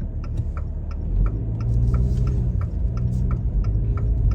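Jeep heard from inside the cabin while driving, with a steady low engine and road rumble and a fast, even ticking about five or six times a second.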